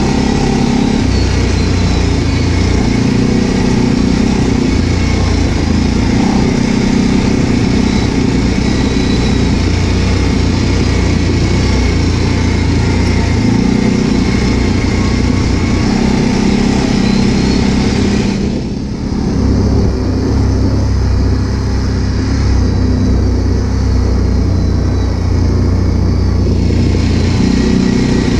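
ATV engine running steadily while riding over a gravel track. The engine eases off briefly about two-thirds of the way through, then picks up again.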